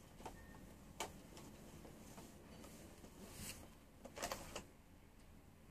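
Faint rubbing and a few light clicks of a hand wiping the ribbed plastic top of a PS3 Super Slim, with a louder cluster of clicks about four seconds in.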